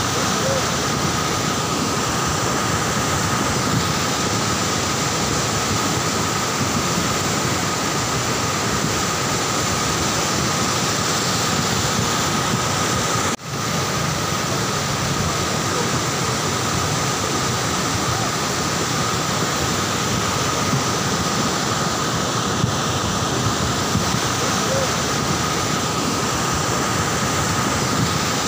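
Cold lahar, a volcanic mudflow of water, ash and debris, rushing down a river channel in a steady, dense roar. The roar breaks off for an instant about halfway through.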